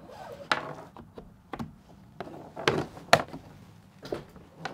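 Bungee cord hooks being popped off the plastic deck of a Hobie Pro Angler 14 kayak: a few sharp clicks and knocks, with fainter handling noise as the cords are pulled free and gathered.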